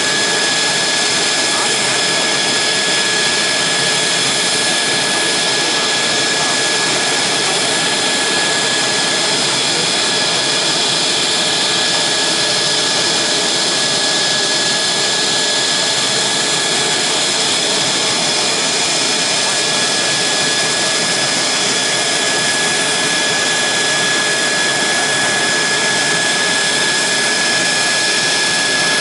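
Mitsubishi F-2's General Electric F110-GE-129 turbofan running steadily on the ground in an engine run-up: a loud, unchanging rush of jet noise with a steady high-pitched whine.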